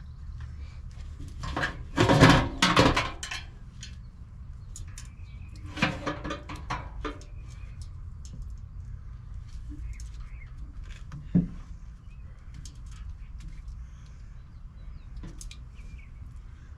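Metal parts and tools being handled during repair work: a couple of loud clattering bursts, then lighter clinks and one sharp knock, over a steady low hum.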